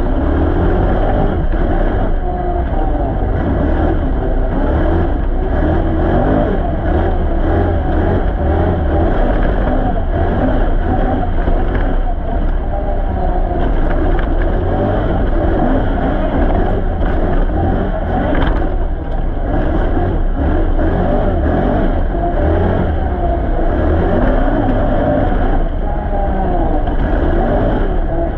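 Can-Am Renegade XC ATV's V-twin engine running under way on a trail, its revs rising and falling continuously.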